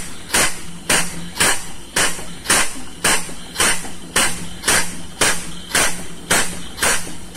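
Air-operated double-diaphragm pump running, each stroke a sharp puff of exhaust air, about two strokes a second, evenly paced. It is sucking up the last residual crude palm oil that the ship's cargo pumps can no longer reach.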